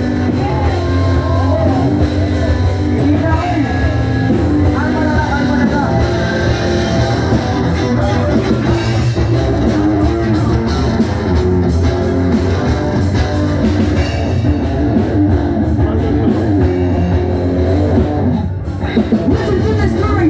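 Live rock band playing loud: electric guitars and a drum kit, with singing. The sound thins briefly near the end.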